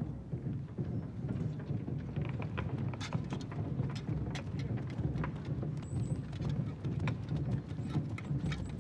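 Horses and soldiers on the move: a steady low rumble with scattered, irregular hoof knocks and clicks.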